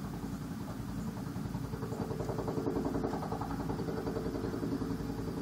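Helicopter lifting off, its rotor beating rapidly over a steady engine hum, growing a little louder about two seconds in.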